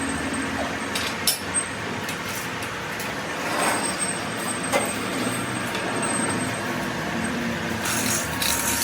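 Steady mechanical noise with a few sharp clicks about a second in and again near the end.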